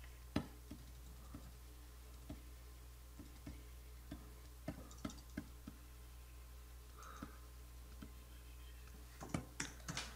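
Faint, irregular clicks of a computer keyboard and input device at a digital-painting desk, over a low steady hum.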